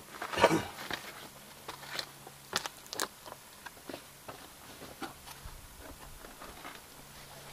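Footsteps crunching and scuffing over rocky desert ground: irregular crunches and clicks, the loudest about half a second in.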